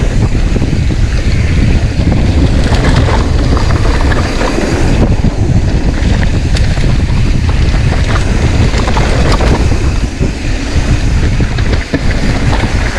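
Wind buffeting the microphone of a camera riding along on a downhill mountain bike run, loud and constant, with scattered clicks and rattles from the bike on the rough trail.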